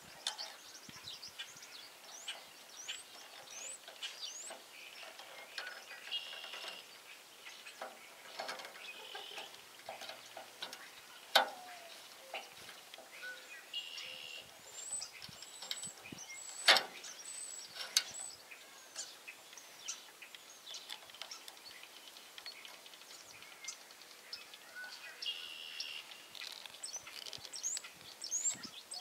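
Small birds chirping on and off over quiet outdoor background noise, with a few sharp clicks from hand work on the wiring and a small screwdriver, the loudest about eleven and seventeen seconds in.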